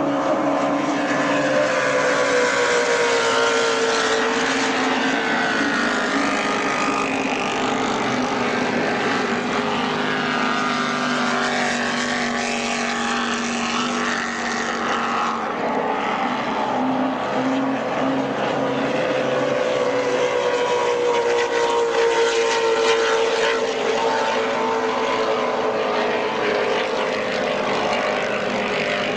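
Racing powerboat engines running at speed, a loud steady drone of several pitches that slowly sinks and rises as the boats race past.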